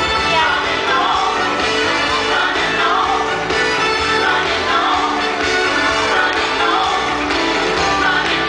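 Christian worship song with singing, playing loud and steady as music for the children's dance.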